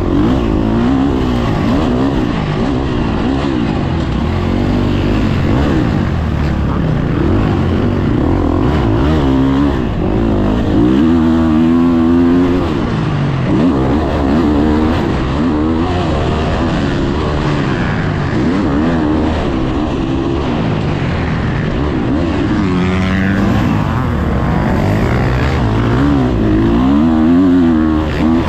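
Husqvarna motocross bike's engine heard from on board, revving up and down continuously as it is throttled and shifted around a dirt track, with rising and falling pitch sweeps.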